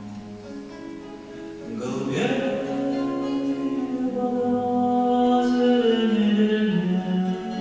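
A man singing a slow song live into a microphone, accompanied by acoustic guitar and a small string ensemble. The voice comes in about two seconds in and holds long, sustained notes over the accompaniment.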